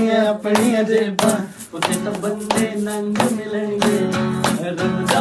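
Acoustic guitar strummed in a steady rhythm, with hand claps keeping the beat.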